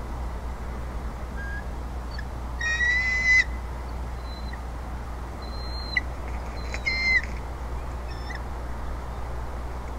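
Bald eagle calling from the nest: two high, whistled calls about four seconds apart, the second shorter, with a few faint chirps between. A steady low hum and hiss runs underneath.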